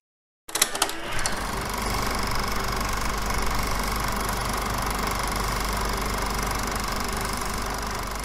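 Film projector sound effect for a logo intro: a few sharp clicks as it starts, then a steady whirring, rattling run of the film mechanism.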